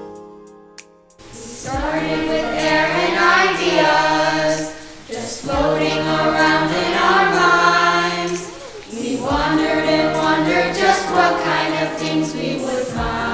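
Piano notes fade out, then just over a second in, young voices start singing a musical-theatre song over accompaniment with a steady low note. The singing comes in phrases with short breaks about five and nine seconds in.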